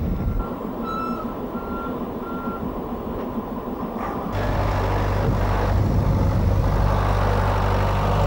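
A vehicle's reversing alarm beeps about four times in the first two and a half seconds, over wind on the microphone. About four seconds in, the sound cuts to a tractor engine running steadily and louder.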